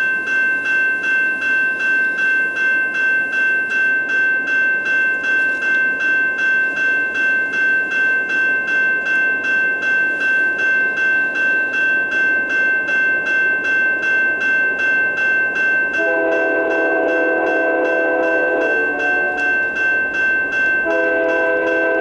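Railroad crossing bell ringing steadily at about two and a half strokes a second, over the low rumble of an approaching freight train. About two-thirds of the way in, the locomotive's multi-note air horn sounds a long chord, breaks off for a couple of seconds, and starts again near the end.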